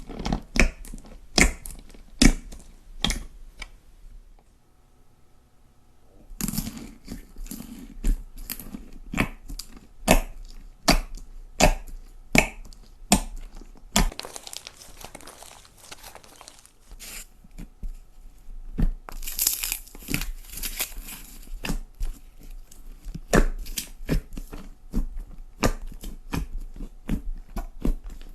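Slime being squeezed, pressed and pulled by hand, giving a run of sharp crackles and pops. There is a brief lull about four seconds in, and denser crinkling stretches in the middle.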